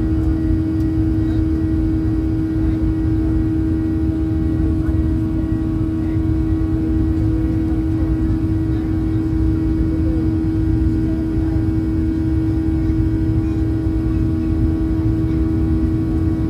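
Steady drone of a Boeing 737-800 airliner as heard in the cabin: a low rumble with one strong constant hum tone and fainter steady tones above it, unchanging throughout.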